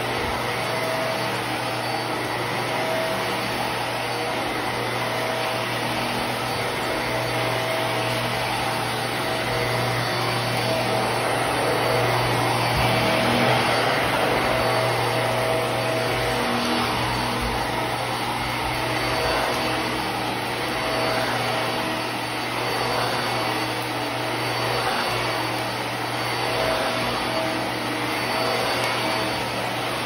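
Hart Pet Grade upright vacuum cleaner running steadily while it is pushed over carpet: a constant motor hum and rush of air that swells and eases slightly with the strokes.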